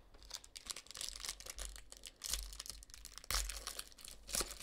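Foil wrapper of a trading-card pack crinkling and tearing as it is handled and ripped open, in a run of irregular crackles.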